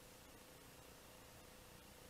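Near silence: a faint steady hiss with a faint steady hum.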